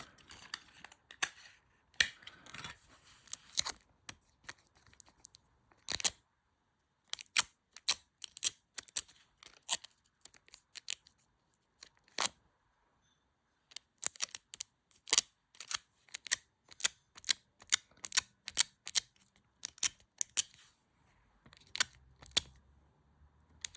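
Scotch tape pressed onto a camera lens filter and peeled off again and again, each lift a short sharp click. The clicks come irregularly in quick runs, with a pause of about a second and a half in the middle.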